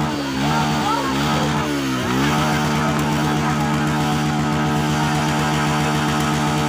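A small engine running steadily at an even speed, with a fast regular pulse.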